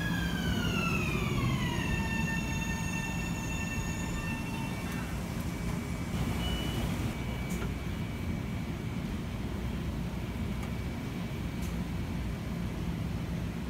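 Metro-North M7A electric multiple unit's traction motor whine falling in pitch over the first two seconds as the train slows, then holding a steady chord for a few seconds. After that comes a steady electrical hum from the train standing at the platform.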